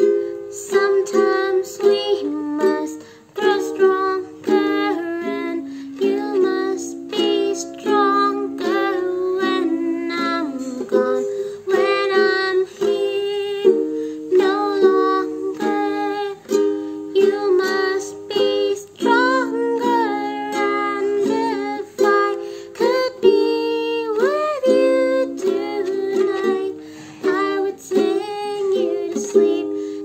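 A woman singing while strumming chords on a ukulele in a steady rhythm.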